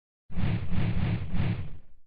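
A whooshing sound effect in a video intro: a noisy rush, heaviest in the low end, that swells three times and stops just under two seconds in.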